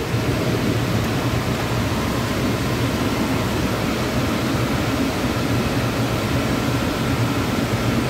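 Steady air rush with a low hum from a running Liebert DS computer-room air conditioner, its blower fans moving air.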